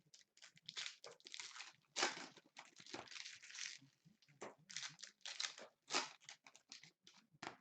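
Plastic trading-card pack wrappers crinkling and tearing as retail packs are opened and handled by hand, in irregular quick rustles.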